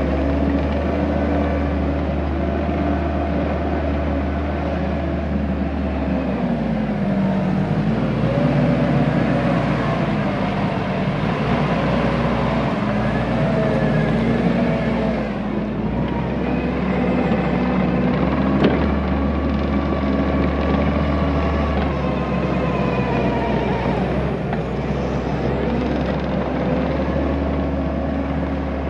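Skid steer engine running under load while pushing and spreading dirt. Its pitch sags about six seconds in and recovers, with one sharp knock about two-thirds of the way through.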